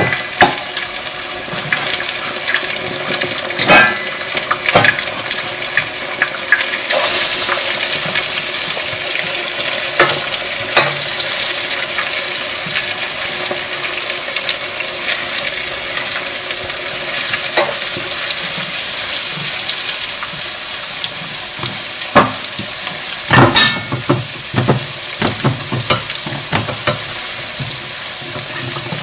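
Breaded chicken nuggets frying in a pot of hot oil: a steady sizzle, broken by a few short knocks and clinks, a cluster of them near the end.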